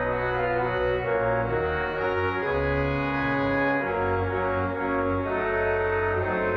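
Hymn tune played on an organ in full, sustained chords that change every second or so.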